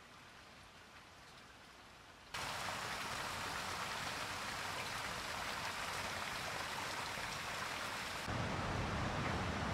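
Faint steady hiss, then about two seconds in a sudden cut to a steady rushing noise, which turns fuller and deeper about eight seconds in.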